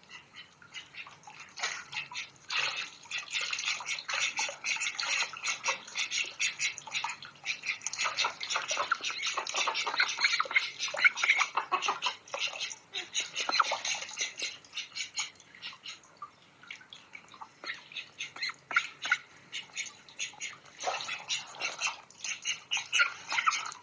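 Domestic ducks splashing and dabbling in shallow muddy water, their bills rapidly slurping and clicking at the surface. It comes in busy bouts, with a quieter stretch a little past the middle.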